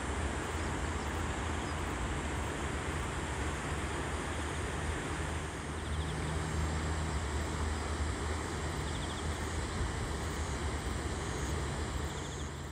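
Swollen, muddy river in flood, rushing steadily, with a low hum underneath.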